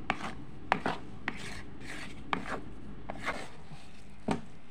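Silicone spatula scraping and knocking against a plastic mixing bowl while stirring flour and cornstarch into a soft cookie dough, in irregular short strokes.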